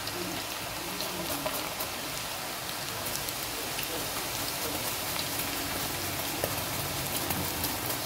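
Freshly added raw green plantain slices deep-frying in a pot of hot oil: a steady, dense sizzle with constant fine crackling.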